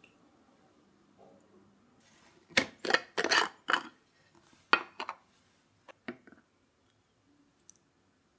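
Kitchenware being handled: a quick run of sharp clinks and knocks of dishes and utensils, then two more near the middle and a few faint ticks later.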